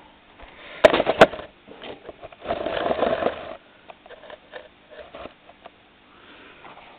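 Handling noise as a video camera is set down: two sharp knocks about a second in, then a short breathy rush and a few faint taps.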